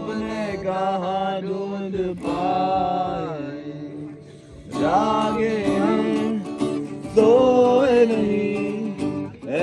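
A voice singing several long, drawn-out phrases to an acoustic guitar.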